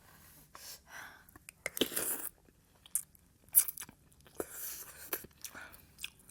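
A person eating close to the microphone: chewing with wet smacks and short, irregular clicks, plus a few brief hissing bursts of mouth noise.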